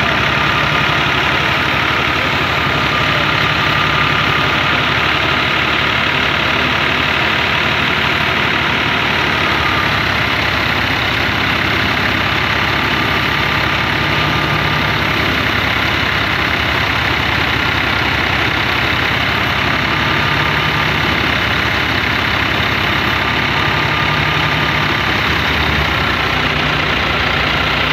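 New Holland 480 tractor's diesel engine running steadily under load as it drives a wheat thresher through its PTO shaft. Over it comes the thresher's continuous rushing whir as wheat sheaves are fed in.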